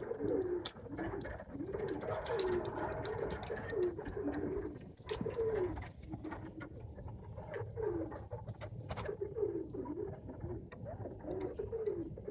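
Domestic pigeons cooing over and over in rising-and-falling coos, with scattered light taps and clicks among them.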